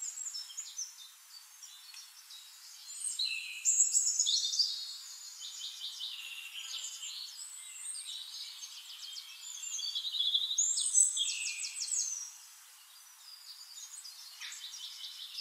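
Recorded bird chorus: several birds chirping and singing high-pitched rapid trills, overlapping, louder in stretches a few seconds in and again about two-thirds through.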